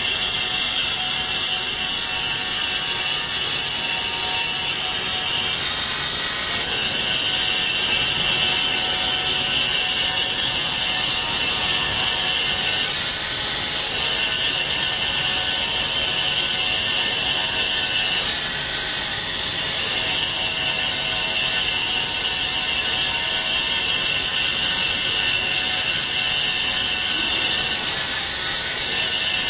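Vertical band-saw foam cutting machine running steadily, its blade slicing through a foam sheet fed against the fence. A high hiss over the motor's drone swells briefly every six or seven seconds.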